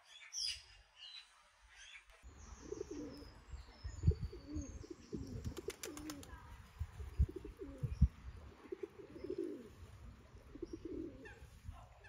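Small birds chirp briefly. Then, about two seconds in, pigeons coo over and over against a low rumble. A few low thumps, the loudest sounds, and a quick run of clicks midway break in.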